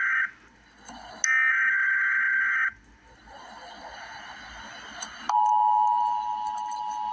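Emergency Alert System broadcast: two harsh, buzzy SAME digital header data bursts of about a second and a half each, a short stretch of hiss, then about five seconds in the EAS attention signal starts, a steady two-tone alarm tone (853 and 960 Hz) that announces the warning.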